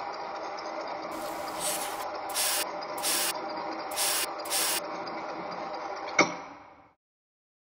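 A steady drone with five short bursts of spray-like hiss between about one and five seconds in. A sharp click comes about six seconds in, then everything fades to silence.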